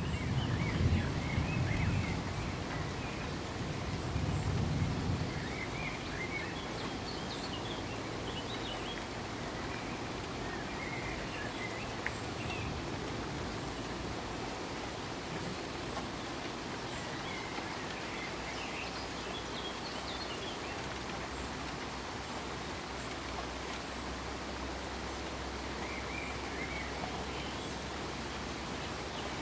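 Rain sound effect, a steady patter. Low rumbles of thunder come twice in the first five seconds, and faint high chirps are scattered through it.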